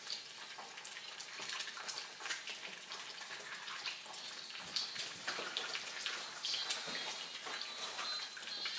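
Duck eggs frying in hot oil in a frying pan: a steady sizzle with many small crackling pops and spits.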